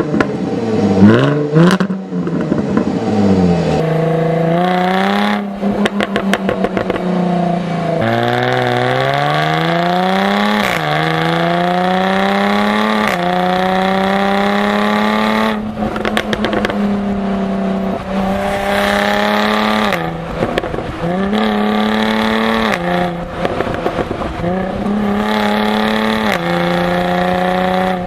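Six-cylinder performance car engine revving quickly up and down, then accelerating hard through the gears: the pitch climbs, drops sharply at each upshift and climbs again, with shifts every two to three seconds in the second half.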